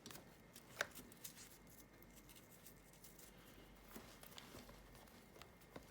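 Near silence with faint handling noise and a few light clicks from the small 3D-printed plastic mount parts and bungee cord being handled.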